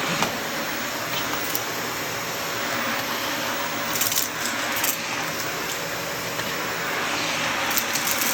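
Vacuum cleaner running steadily, with a few brief clicks and clatters about halfway through and again near the end.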